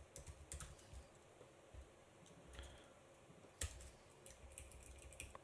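Faint, sparse typing on a computer keyboard: scattered soft key clicks, with one sharper click about three and a half seconds in.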